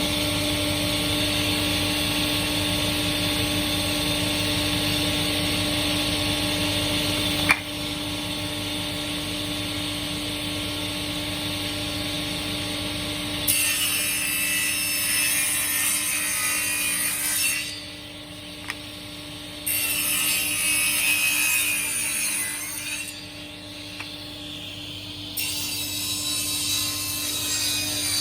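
A power saw's motor running steadily, then cutting wood three times in passes of about three to four seconds each, starting about halfway through.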